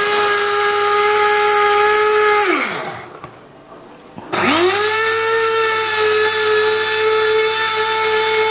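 Electric mini grinder's motor running at a steady high whine as it grinds ragi (finger millet) to powder. About two and a half seconds in it is switched off and spins down to a stop, then a second and a half later it is pulsed on again, quickly rising back to speed and running steadily.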